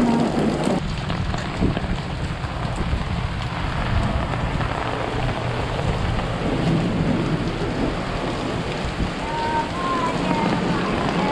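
Heavy rain falling on a wet street, a steady hiss with a low rumble underneath.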